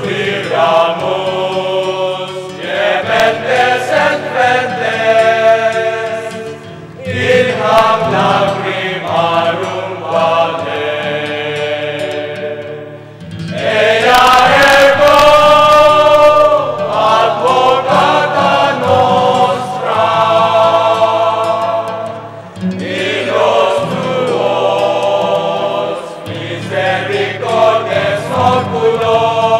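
Choir singing a slow chant in long phrases with held notes, over a steady low drone.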